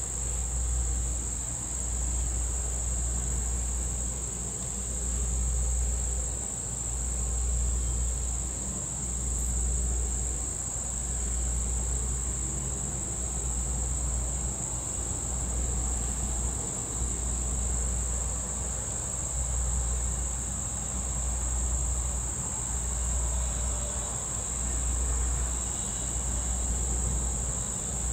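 High-pitched insects buzzing steadily in one unbroken chorus. A low, uneven rumble rises and falls underneath.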